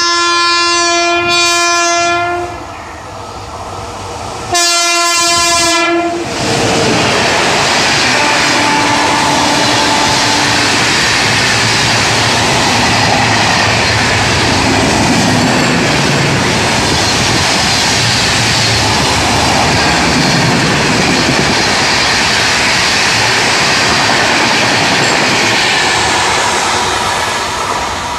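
WAP7i electric locomotive sounding its horn in two blasts on approach: a long one that ends about two seconds in, then a shorter one about four and a half seconds in. From about six seconds in, an LHB express rushes past at about 118 km/h, a loud steady rushing of the coaches on the rails that begins to fade near the end.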